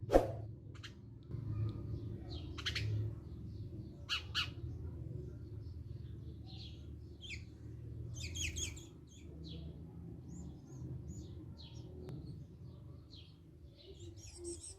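Birds chirping and squawking in short calls throughout, over a steady low hum. A single sharp click comes just after the start and is the loudest sound.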